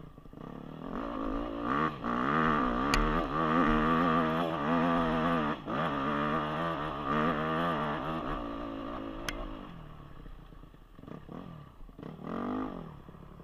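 Dirt bike engine revving up and down under throttle, loudest through the middle, then dropping away, with one more short rev near the end.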